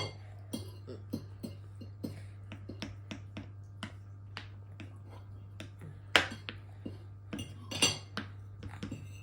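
Dishes and cutlery clinking and tapping at a meal: a run of light clicks and knocks, with two louder clatters about six and eight seconds in, over a steady low hum.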